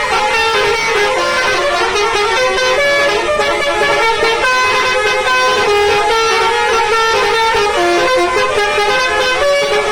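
Several buses' multi-tone 'telolet' musical air horns (basuri horns) sounding loudly all at once. Their overlapping tunes make a dense, changing cluster of held notes with no break.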